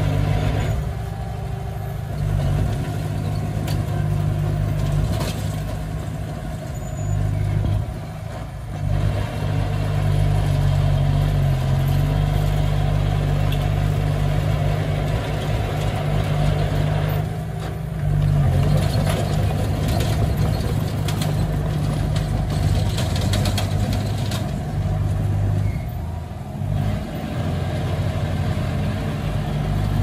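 Small crawler bulldozer's diesel engine working as the dozer pushes a pile of rock and dirt. The engine drone rises and falls with the load and eases off briefly about three times.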